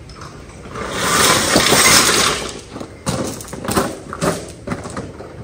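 Boots crunching and scuffing on loose gravel: a long grinding crunch about a second in as a person gets up and turns, then separate footsteps.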